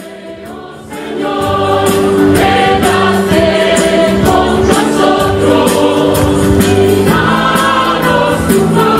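Background music: a choir singing held, sustained chords, coming up much louder about a second in.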